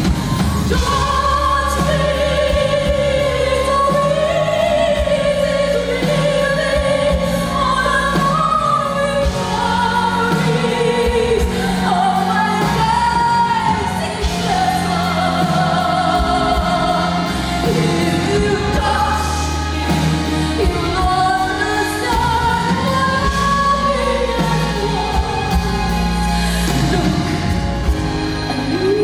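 A woman singing a slow ballad live into a microphone, holding long notes, with band accompaniment of bass and drums underneath.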